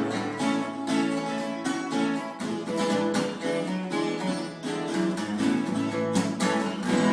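Viola caipira being plucked and strummed in a steady rhythm, an instrumental passage of a moda de viola between sung verses.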